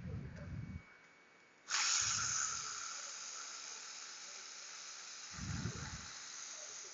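A hiss that starts suddenly nearly two seconds in and slowly fades over several seconds, from gas or spray being released, with a few short muffled low bumps.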